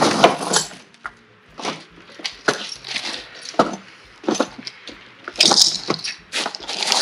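Steel snow chains (Master Power 9060) clinking and rattling in short, irregular jangles as the links are handled and hooked around a camper van's tyre. The jangles are loudest at the start and again about five and a half seconds in.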